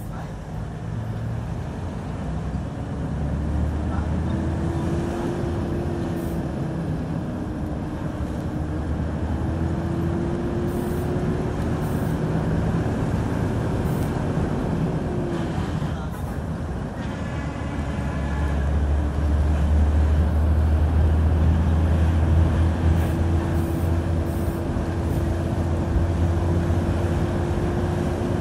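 2006 Hyundai Aero City 540 bus engine running with a loud low rumble and a steady droning tone that drifts slowly upward, dips briefly about halfway through, then holds steady with the rumble stronger.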